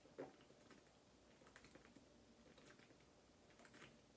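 Near silence: faint swallowing from a plastic water bottle, with a few soft scattered clicks.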